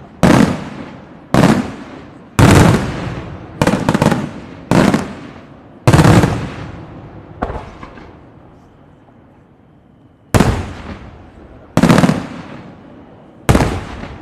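Aerial firework shells bursting, about ten loud booms roughly a second apart, each trailing off before the next. A pause of about two seconds falls in the middle, then three more booms.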